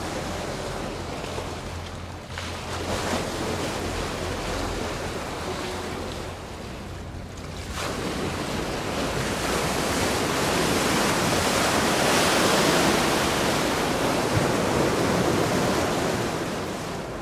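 Wake waves from a passing superyacht washing in and breaking, swelling about halfway through, loudest a few seconds later, and easing off near the end. Wind rumbles on the microphone underneath.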